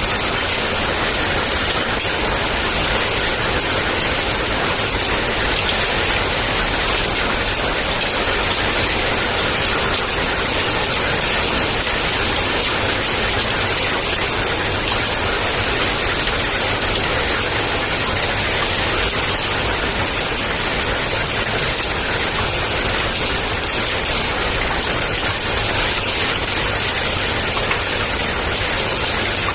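Heavy rain falling steadily: a dense, even hiss with no breaks or single strikes.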